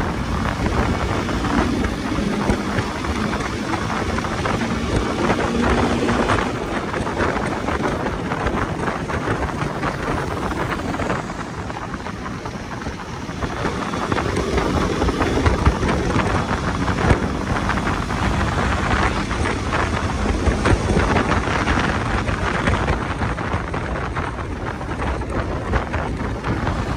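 Wind buffeting the microphone on a moving motorcycle, with steady engine and road rumble underneath; it eases off briefly around the middle.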